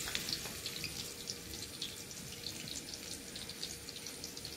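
Hot oil in a kadai softly crackling and sizzling with scattered small pops as battered vegetable fritters deep-fry.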